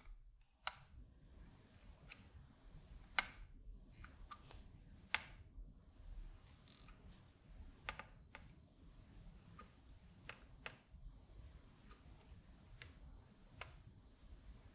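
Faint, light taps and clicks from hand-soldering LED leads on a circuit board, as the soldering iron tip and solder wire touch the pads. There are about a dozen of them, scattered irregularly over near-quiet room tone.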